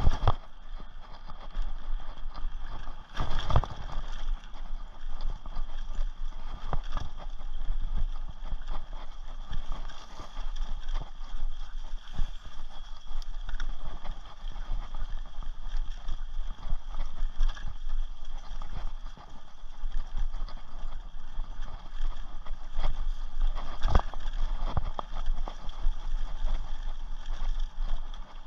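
Rocky Mountain Thunderbolt mountain bike rattling over a bumpy forest trail at speed, with many irregular knocks and clatters as the wheels hit roots and bumps. A steady high hum runs underneath.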